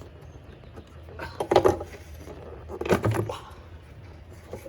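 Handling noise: two short bursts of clattering and scraping, one about a second in and another near three seconds, as parts or gear are moved by hand.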